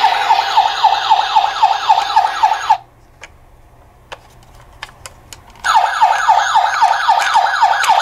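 Toy ambulance's electronic siren sounding a fast yelp, a rising whoop repeated about five times a second. It cuts off about three seconds in, a few clicks are heard in the quiet gap, and the siren starts again near six seconds.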